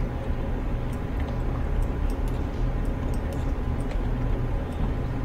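Steady low background rumble, with a few faint, short clicks scattered through it.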